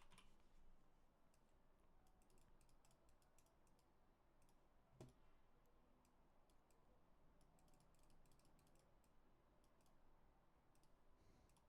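Near silence with faint, scattered clicks from a computer at the desk, and one soft knock about five seconds in.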